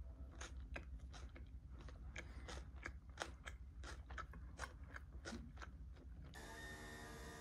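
Crisp food crunching in a quick, irregular series of sharp crunches, a few each second. About six seconds in they stop abruptly and a steady hum with several held tones takes over.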